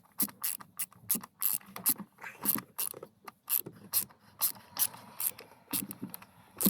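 Ratchet clicking steadily, about three sharp clicks a second, as it drives a T30 Torx bit to tighten the bolt holding a VW Golf accelerator pedal.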